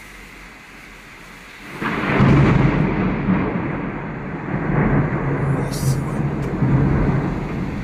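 Thunder breaks in suddenly about two seconds in and rumbles on in a long deep roll that swells several times, easing off near the end. Steady heavy rain runs underneath.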